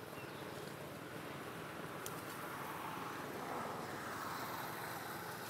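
Steady outdoor background noise, a broad hum that swells slightly in the middle, with a faint tick about two seconds in.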